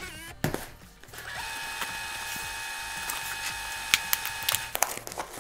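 VHS-style tape fast-forward sound effect: a steady mechanical whir holding a few fixed tones for about three and a half seconds, with a few clicks near its end. A sharp knock comes about half a second in, before the whir.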